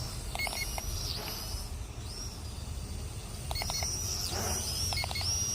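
Syma X440 mini quadcopter's small motors whining high, rising and falling in pitch in several short swells. The motors keep running with the drone held in the hand instead of stopping on their own.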